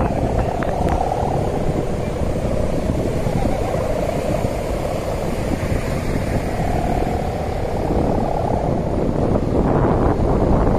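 Kite hummers on many kites flying together, droning in a wavering hum that swells near the start and again about two-thirds through, under heavy wind buffeting the microphone.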